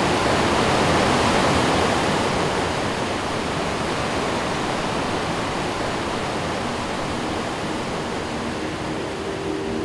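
Rushing whitewater: a steady noise of water pouring over rocks, a little louder in the first couple of seconds and then easing slightly. Faint held tones come in near the end.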